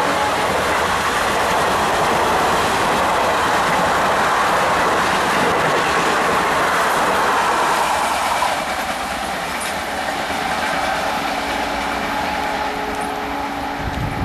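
Indian Railways passenger train passing close by, its wheels clattering over the rail joints in a loud, steady rush of noise that eases a little about eight seconds in.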